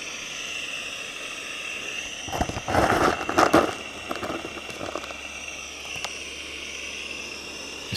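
Steam blower of a small coal-fired live-steam locomotive hissing steadily, drawing the fire. A few seconds in, lumps of coal rattle as a small shovel scoops them from a bucket.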